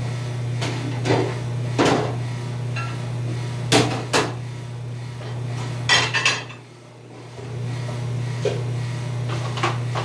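Dishes and dish racks clattering in a commercial dish room: scattered sharp knocks, the loudest cluster about six seconds in, over a steady low machine hum that dips briefly around seven seconds in.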